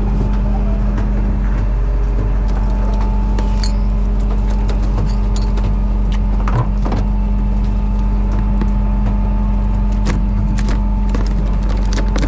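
A fishing boat's engine running steadily with a low hum, with scattered knocks and clicks over it.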